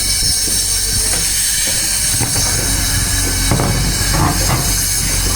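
JCB 3DX backhoe loader's diesel engine running steadily with a low hum, with a few short knocks and clanks about three and a half to four and a half seconds in.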